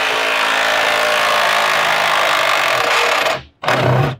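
A power tool's motor running steadily with a loud hiss and a constant hum, stopping abruptly about three and a half seconds in, followed by two brief sounds.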